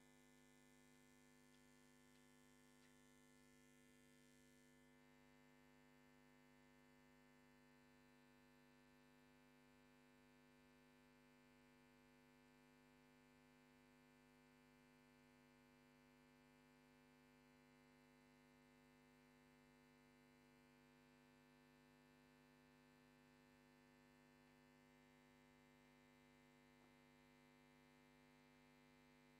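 Near silence with a steady electrical hum made of several fixed tones. A faint hiss stops about five seconds in.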